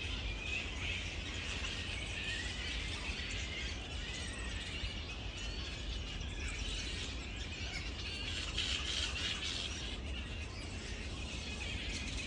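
Flying fox colony calling: a steady din of many overlapping high-pitched chattering screeches from the roosting bats.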